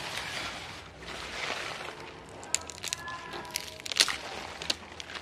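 Mustard greens being pulled up by hand: leaves and stems rustling, with a run of sharp snaps and crackles in the second half as stems break and roots tear out of the soil.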